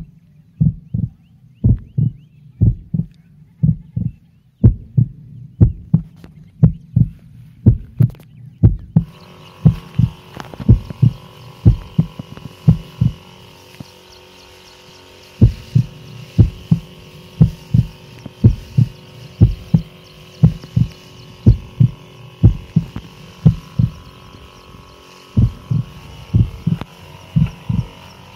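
Knapsack sprayer pesticide spraying: from about nine seconds in, the sprayer's pump whines steadily under the hiss of the spray mist. A run of low thumps, a little under two a second, goes on throughout and stops briefly around the middle.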